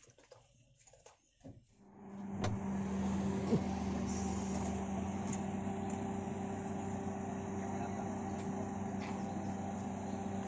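A motor vehicle's engine idling steadily with an even hum. It comes in about two seconds in after a nearly quiet start, with a couple of light clicks soon after.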